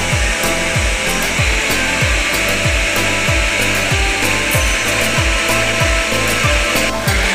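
Countertop blender motor running steadily, whirring as it purees pomegranate seeds, under background music with a steady thumping beat of about three beats a second.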